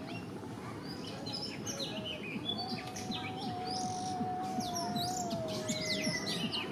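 Many small birds chirping rapidly and continuously over a steady low noise. A long held tone comes in about two and a half seconds in and dips slightly before stopping about a second before the end.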